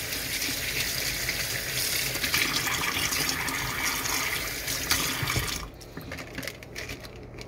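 Kitchen faucet running into a stainless steel sink, the water splashing over a hand and then pouring straight into the drain. It is shut off abruptly about five and a half seconds in, followed by a few light clicks and knocks.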